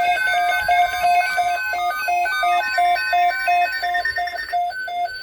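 Weather-alert radio receiver sounding its alert alarm: a loud, rapid electronic beeping, three to four beeps a second, with other steady tones sounding beneath it. It signals an incoming warning broadcast, here a tornado watch.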